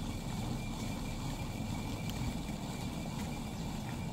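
Hand-turned stone quern grinding wheat: the upper millstone rotating on the lower one with a steady, low grinding rumble.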